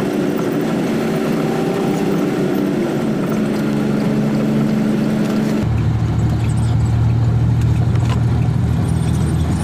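Truck engine running at highway cruising speed, heard from inside the cab as a steady drone. A little past halfway the note drops abruptly lower and gets heavier.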